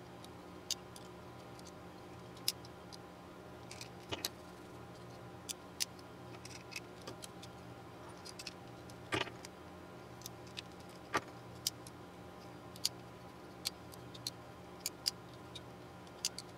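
Small, sharp metallic clicks and taps, scattered irregularly, from a Leatherman Surge multitool being handled and adjusted after its screw is set, over a steady low hum.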